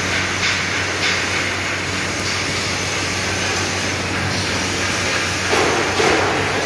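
Steady din of a steel fabrication shop floor: a broad rushing noise over a low electrical hum, with a brief louder swell about five and a half seconds in.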